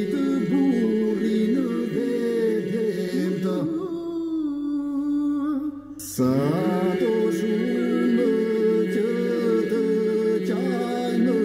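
Albanian polyphonic elegy sung unaccompanied by men, a lead voice and a responding voice over a steady low held note. About four seconds in the low note drops away and one voice holds a long, wavering note alone, which breaks off just after six seconds before the voices come back together over the held note.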